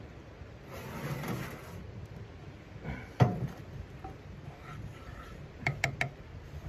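A steel frying pan and kettle are shifted on a steel wood-stove top: a scraping slide, then one loud metal clank about three seconds in. Near the end comes a quick run of about four knocks of a wooden spatula against the pan, each with a short ring.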